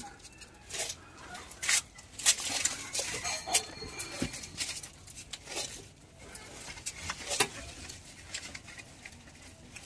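Dry sal leaves crackling and rustling in irregular clicks as they are handled and pressed in a small leaf-bowl (dona) making press.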